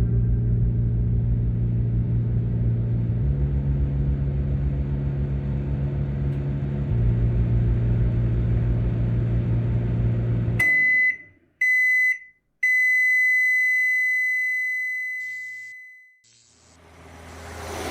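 Microwave oven running with a steady low hum, then stopping and giving its end-of-cycle beeps: two short beeps and a long one that fades away.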